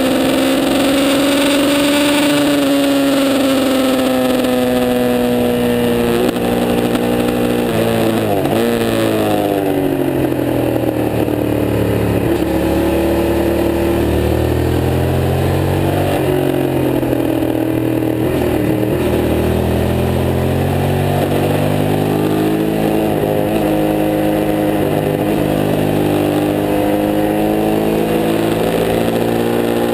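Suzuki race motorcycle's engine heard from an onboard camera at racing speed. The revs climb and fall through the gears and corners, with a sharp drop in revs about eight seconds in.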